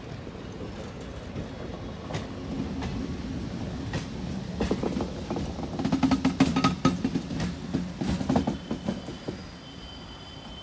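Train wheels clattering over rail joints and points as rail vehicles roll past close by, with a DEMU diesel power car going by. The clacking thickens into a dense run in the middle, then eases off near the end.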